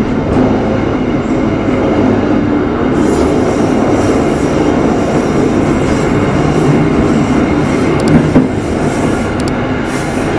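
Passenger train running on the rails: a steady loud rumble of wheels, with a thin high wheel squeal from about three seconds in and two sharp knocks just past eight seconds.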